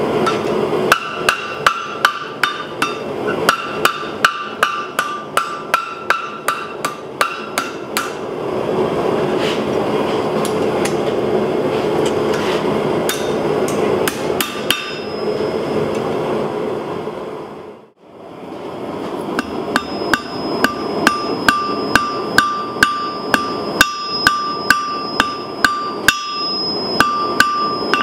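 Hand hammer striking red-hot steel rod on an anvil: quick runs of ringing blows, about three to four a second, with a steady rushing noise between the runs. The sound cuts out briefly about two-thirds of the way through, then the hammering starts again.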